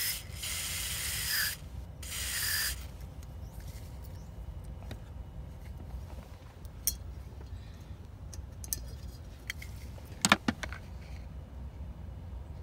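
Aerosol electrical contact cleaner sprayed in two short hissing bursts onto a seatbelt buckle's latch switch, to wash dust and dirt out of it. A few light clicks follow, the loudest cluster about ten seconds in.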